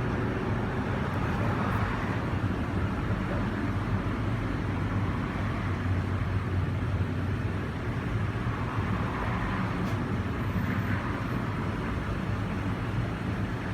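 Steady low engine hum with road traffic noise, unbroken throughout.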